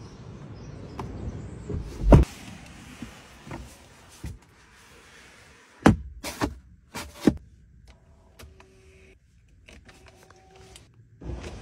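Clicks and knocks of a car's rear-cabin fittings being handled: a loud thump about two seconds in, then a cluster of sharp clicks around the centre armrest and the removable rear touchscreen remote. Near the end comes a faint steady whine of a small electric motor.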